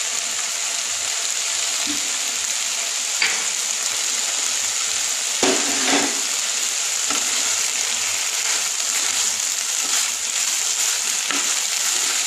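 Sliced vegetables and sprouted moong frying with a steady sizzle in a non-stick pan over a gas flame. A wooden spatula stirs them, knocking against the pan briefly about three seconds in and again around six seconds in.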